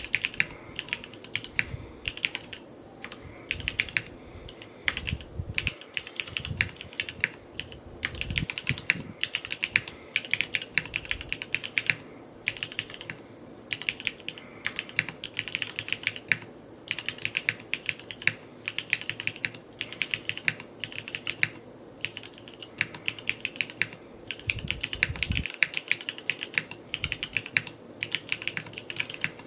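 Continuous typing on a Neo65 Cu 65% custom mechanical keyboard: fast runs of sharp keystroke clacks, broken by short pauses every few seconds, with an occasional deeper thock.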